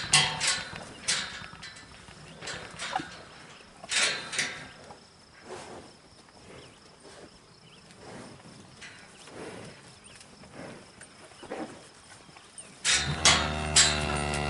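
Irregular knocks and clatters of cattle moving in a livestock chute: hooves and bumps against the rails, loudest about four seconds in. About thirteen seconds in, a louder, low, steady pitched sound starts.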